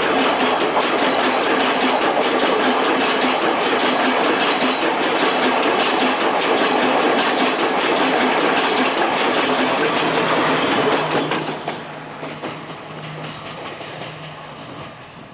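Passenger train coaches rolling past at close range, steel wheels clattering rhythmically over the rail joints with a loud steady rumble. About eleven seconds in the last coach has gone by and the sound falls away as the train moves off, leaving a low steady hum.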